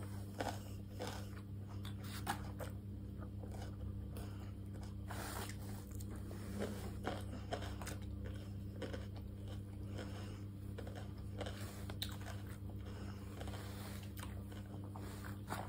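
A person chewing and biting food close to the microphone, with scattered small crunches and clicks, over a steady low hum.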